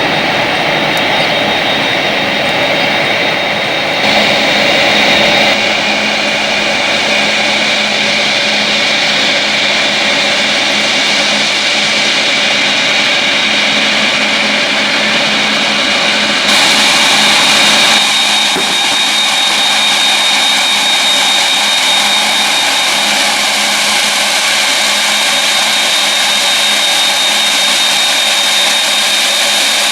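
Jet airliner engines running loud and steady, a broad rush with a high whine on top. The sound steps abruptly about 4 seconds in and again around 17 to 18 seconds in.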